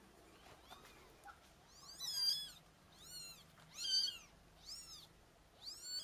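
Newborn kittens mewing: about five short, high-pitched mews, each rising then falling in pitch, beginning about two seconds in.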